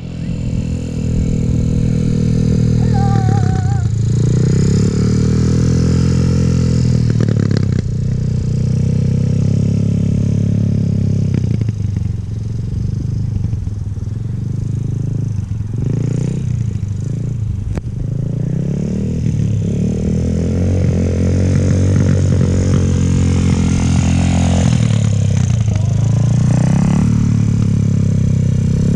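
Small motorcycle engine running as it is ridden, its pitch rising and falling over and over as the throttle is opened and eased off.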